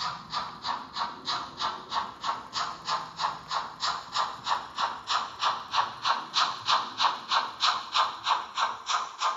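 Sound module of a TRIX H0 model of CFL steam locomotive 5519 playing steady steam-exhaust chuffs, about four a second, as the model runs. The chuffs grow louder in the second half as it passes close by.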